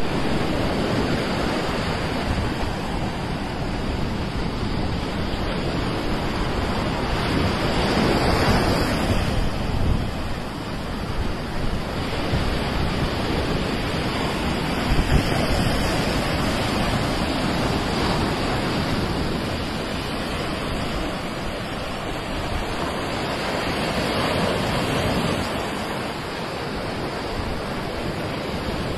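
Sea waves breaking in the surf: a steady rushing wash that swells and eases now and then, with wind buffeting the microphone.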